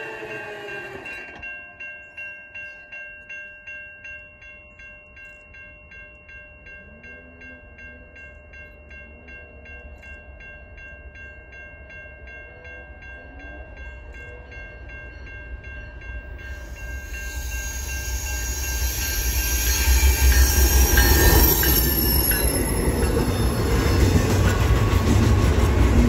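A train horn chord fades out, then a warning bell rings in a steady even rhythm for about fifteen seconds. About two-thirds of the way through, a train's heavy rumble and wheel noise build up fast and stay loud as it passes close by.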